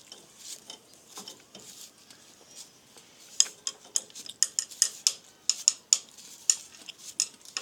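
Plastic sheet crinkling and crackling as it is wrapped by hand around bare fan-wire joints, to insulate them. Faint rustling at first, then from about three seconds in, a rapid, irregular run of sharp crackles.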